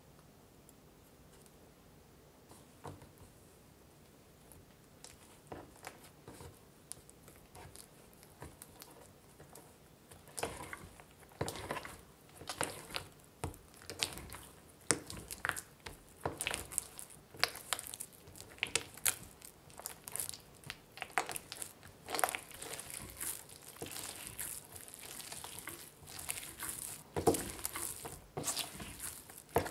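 Hands kneading softened unsalted butter into milk bread dough on a wooden cutting board: wet, sticky squishing and tearing as the buttery dough pulls apart and is pressed back together, with occasional sharper knocks. The sounds are faint at first and grow much busier about ten seconds in.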